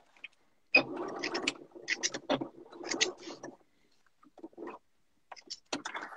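Domestic sewing machine stitching for about three seconds, then stopping; a few light clicks and rustles follow as the fabric is handled at the machine.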